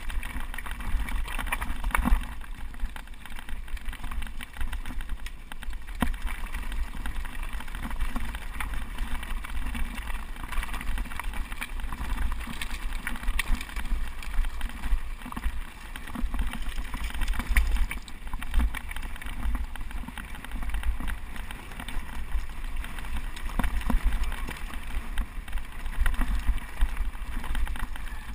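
A bike running fast down a loose rocky track: tyres crunching over stones and the bike rattling with a constant stream of small knocks, over a steady low rumble of wind and vibration on the microphone.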